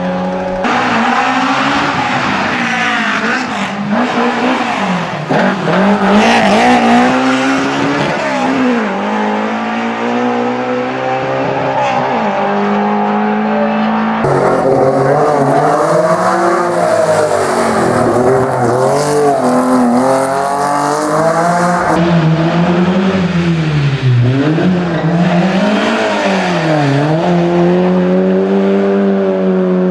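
Historic racing car engines revving hard, the pitch climbing and dropping again and again as the cars accelerate and shift through the gears, with some tyre squeal. The sound changes abruptly a few times, jumping from one car to another.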